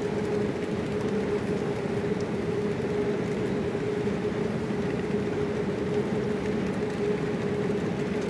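Steady hum of an airport terminal's background noise, with a constant low tone and no distinct events.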